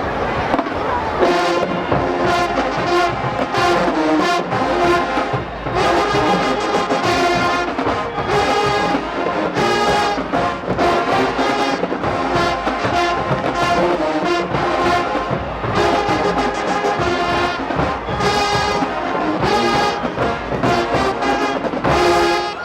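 Marching band playing loudly: brass and trombones carrying the tune over a steady drum beat.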